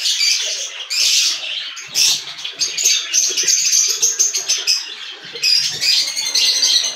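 A flock of caged budgerigars chirping and chattering: a dense, continuous high twittering of many birds at once.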